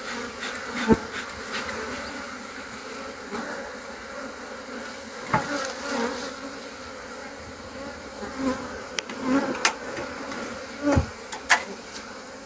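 Honeybees buzzing in flight around an opened, smoked Langstroth hive: a steady hum, with a few sharp knocks and clicks over it.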